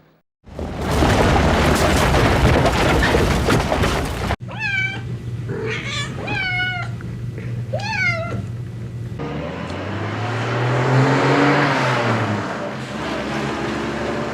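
A string of separate sound effects: loud, even noise that cuts off suddenly, then a cat meowing several times, then a low drone that rises and falls in pitch over a noisy background.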